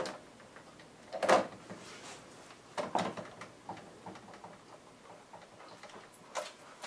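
Corded wall telephone being handled: the handset taken up and the keypad buttons pressed to dial, a few quiet clicks at uneven intervals.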